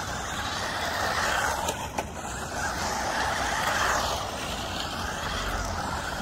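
1/16-scale SG 1603 and SG 1604 RC cars driving on rough asphalt: a rushing buzz of small motors and tyres that swells as a car passes close, loudest about four seconds in. A brief click about two seconds in.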